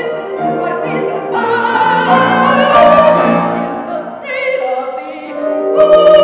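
Solo female voice singing a show tune with wide vibrato over grand piano accompaniment. Near the end it swells into a loud, held note over the piano.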